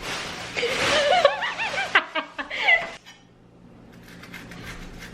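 A woman laughing in a run of high giggles for about three seconds, then it dies away to faint light clicks.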